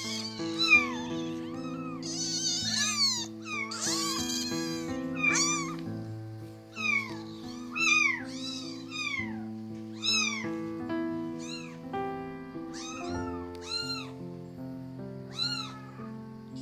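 Kittens meowing repeatedly in short, high-pitched calls, over background music of sustained held notes.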